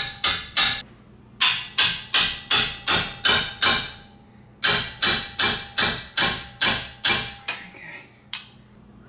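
Hammer blows on metal in quick runs of about three a second, with a short metallic ring after each blow. Three runs are broken by short pauses, and a single blow falls near the end.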